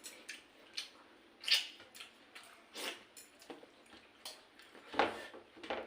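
Wet eating sounds from watery fermented rice (pakhala) and kanji: irregular slurps, smacks and squishes, the loudest about a second and a half in and again near the end.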